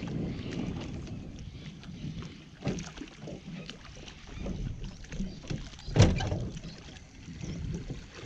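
Water slapping and lapping against a small boat's hull, with wind buffeting the microphone. A few sharp knocks, the loudest about six seconds in.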